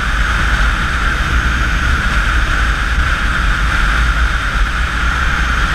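Steady wind roar and low buffeting on the microphone of a motorcycle-mounted camera at highway speed, with the motorcycle's running noise underneath.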